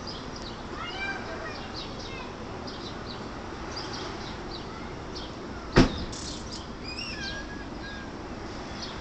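Small birds chirping and twittering, with a few swooping calls. About six seconds in comes a single loud, sharp snap, the loudest sound here, followed by a brief high crackle.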